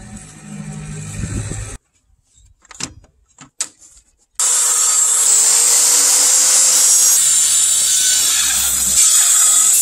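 Makita circular saw running steadily and cutting across a solid timber beam, starting about four and a half seconds in and the loudest sound. Before it there is a low hum for about two seconds, then a few light knocks.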